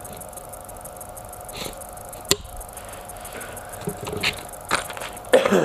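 Clear plastic bag holding carbon-fibre drone frame arms handled and set down on a wooden table: soft crinkles and a few light taps, with one sharp click about two seconds in.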